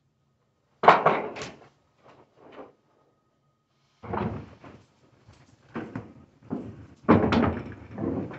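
A tall wooden cabinet and a wooden furniture dolly knocking and thudding as the cabinet is tipped and set down onto the dolly. There is a loud thud about a second in and a few lighter knocks, then more thuds from about four seconds in, with the heaviest near the end.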